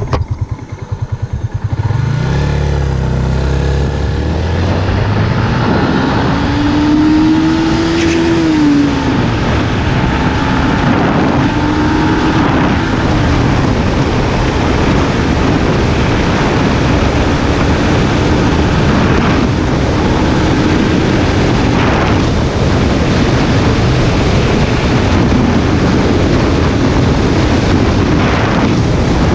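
Yamaha Exciter 150's single-cylinder engine accelerating hard from a rolling start, geared short with a 15-tooth front sprocket and 47-tooth rear. The engine note climbs, drops about 9 and 13 seconds in as it shifts up, then climbs more slowly under rising road and wind noise.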